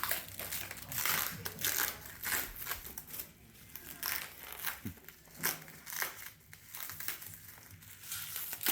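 Paper and plastic packaging being crumpled and handled as a parcel is unwrapped by hand: an irregular run of rustles and crinkles.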